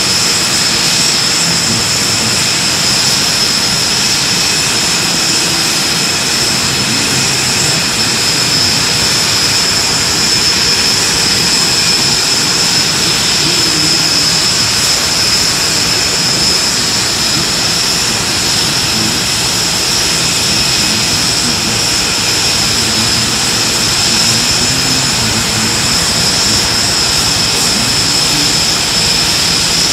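Aircraft turbine engine running steadily, a continuous high-pitched whine over a rushing base.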